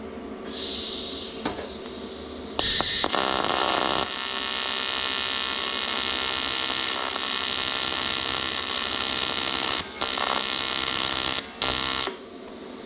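AC TIG welding arc on aluminum, buzzing steadily, as a return-line neck is welded to an aluminum fuel cell. The arc strikes sharply about two and a half seconds in, breaks off briefly twice near the end, and stops about a second before the end.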